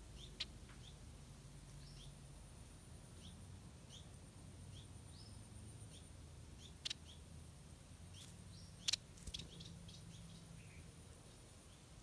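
Small birds chirping faintly: short, high, rising chirps repeat about once a second, with a sharper, louder chirp about half a second in and a few more about 7 and 9 seconds in.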